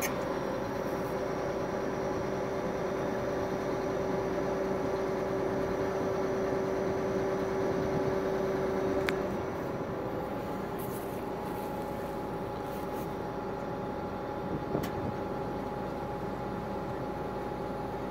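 A steady engine hum with several constant tones, its tone changing slightly about halfway through, with a couple of faint clicks.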